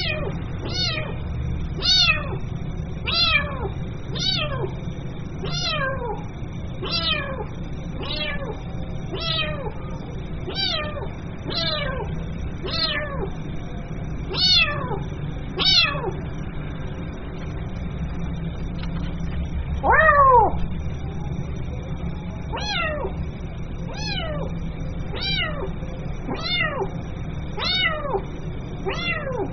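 Kitten meowing over and over to call its mother: short, high calls falling in pitch, about one a second, with a pause and then one longer call about twenty seconds in.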